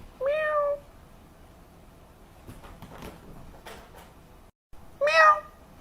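A short meow right at the start, followed by faint knocks and shuffling. Another brief pitched call comes near the end.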